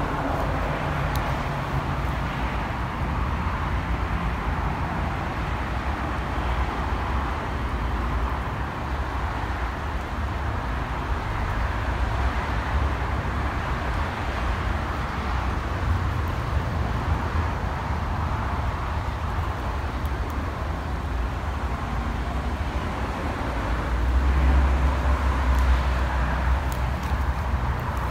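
Steady outdoor background noise: a low rumble with a hiss over it, swelling louder for a couple of seconds near the end.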